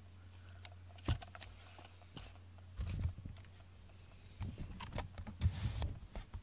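Handling noises: scattered clicks, knocks and soft thumps as a small cat-shaped lamp and nearby cables are picked up and moved about, over a steady low hum.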